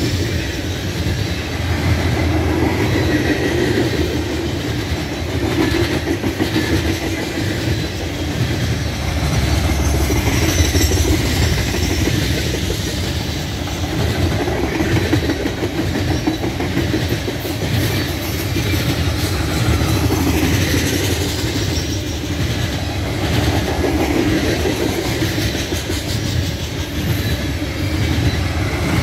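A long train of loaded coal gondolas rolling past at speed: a steady, heavy rumble of steel wheels on rail, with wheels clicking over the rail joints throughout.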